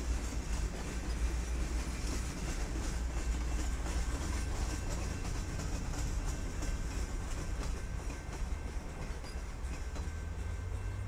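Freight train of tank cars and boxcars rolling past: a steady low rumble, with the wheels clicking over the rail joints.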